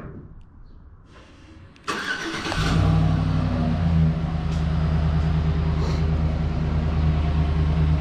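A pickup truck's engine being cranked by the starter and catching about two seconds in, then settling into a steady idle.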